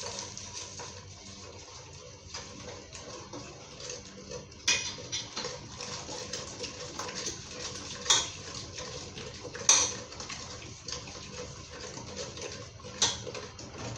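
A metal spoon stirring and scraping blended ogbono frying in hot palm oil in a pot, over a steady frying hiss, with several sharper knocks of the spoon against the pot.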